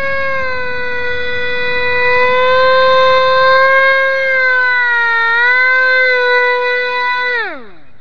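Electric ducted fan of a single-fan VTOL drone whining loudly at hover, its pitch wavering a little with throttle. About seven seconds in, the whine falls steeply and stops as the drone lands and the motor is cut.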